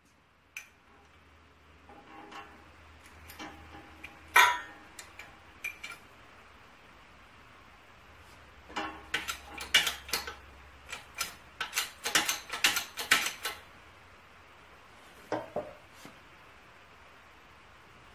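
Metal clanks and clinks as an engine casting with its cam gear is shifted and set in place on the steel bed of a hydraulic floor press. There is one sharp clank about four seconds in, a quick run of clinks in the middle, and a last knock near the end.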